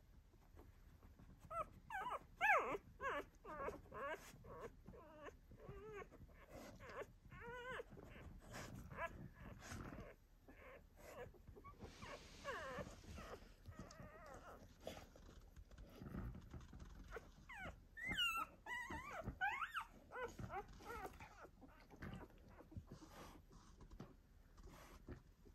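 Two-day-old Eurasier puppies whimpering and squeaking in short, high, wavering cries, coming in clusters with a flurry about two seconds in and another near eighteen seconds, and a brief rustle in between.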